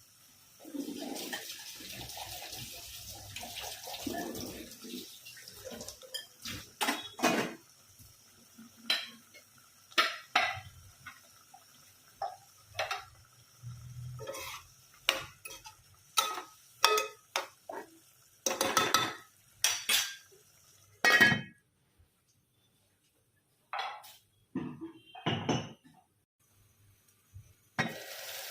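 Metal cooking utensils and pots clinking and clattering: a string of irregular sharp knocks and clinks, some of them ringing briefly.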